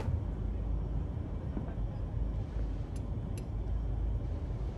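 Steady low hum of a starship's interior background ambience, with two faint clicks about three seconds in.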